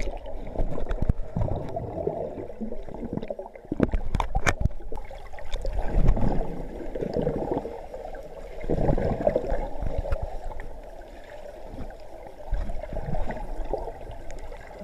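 Muffled underwater sound picked up by an action camera in its waterproof housing, submerged in a swimming pool: water gurgling and rushing past in surging swells, with a few sharp knocks about four seconds in.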